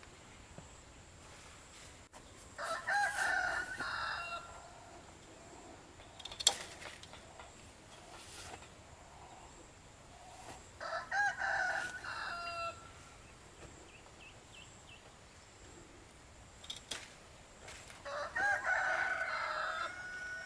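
A rooster crowing three times, each crow a long call of a second and a half to two seconds, spaced about eight seconds apart. A sharp knock about six seconds in is the loudest single moment.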